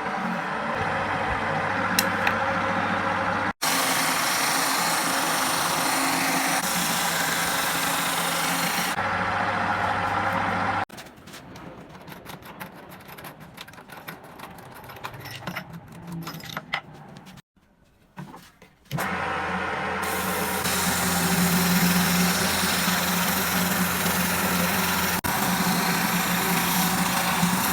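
Washing-machine motor rigged as a sander, running with a steady low hum. It comes in several clips broken by abrupt cuts. A quieter stretch in the middle holds scattered light clicks.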